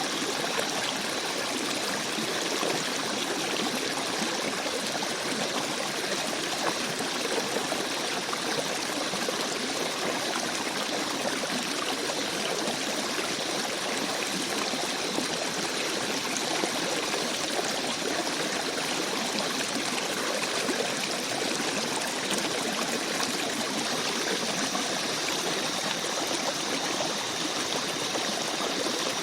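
Forest stream babbling steadily over rocks, an even rush of flowing water with no breaks.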